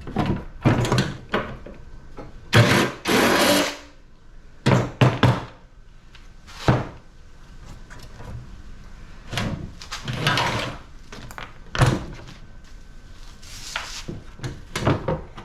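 Irregular metal clanks, knocks and scrapes from an air-conditioning unit being taken apart by hand. Among them are a few sharp single knocks and some longer rattling scrapes of about a second.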